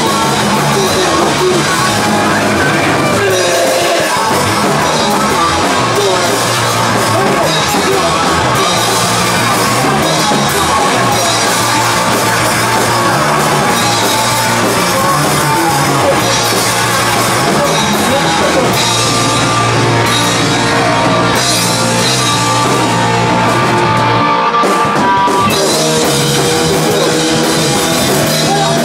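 Live rock band playing loud: a drum kit with cymbals and an electric guitar through an amplifier, a steady wall of heavy, punk-edged rock.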